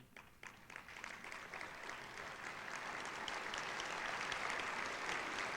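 Audience applauding, starting about a second in and swelling over the next couple of seconds before holding steady.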